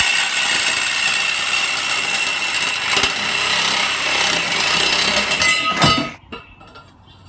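Power saw running and cutting through a post, a steady noisy whine with one high tone held throughout. It stops about six seconds in.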